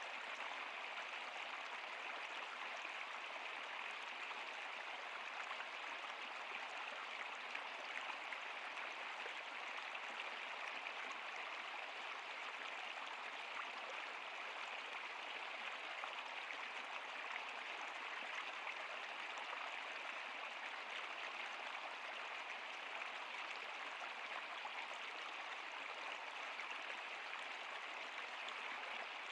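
Stream water running over rocks, a steady rushing babble.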